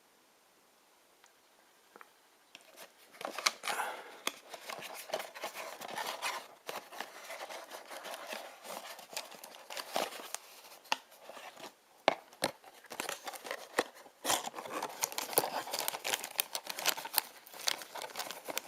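Near silence for about three seconds, then blind-box toy packaging being opened by hand: cardboard and plastic wrapping crinkling and tearing, with many sharp clicks and rustles.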